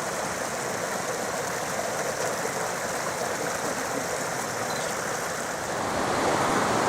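Small forest stream running, a steady rush of water that gets a little louder near the end.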